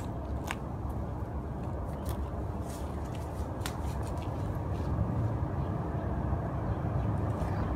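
Steady low rumble of an idling work truck's engine, with scattered light clicks and scuffs of a person walking and climbing into a tree.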